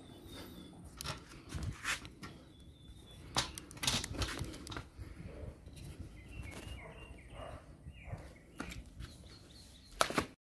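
Outdoor ambience with scattered soft clicks and knocks, and a small bird chirping a few times in the second half; the sound cuts off suddenly near the end.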